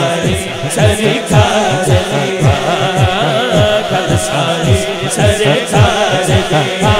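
A man singing a devotional Punjabi naat melody through a public-address system, over a steady low beat that repeats about three times a second.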